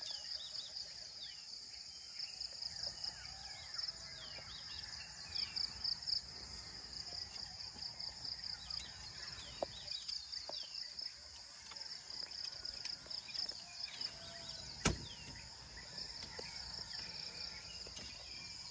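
Dusk chorus of insects: a steady, high-pitched, finely pulsing trill. Scattered short falling chirps sound over it, and there is a single sharp click about fifteen seconds in.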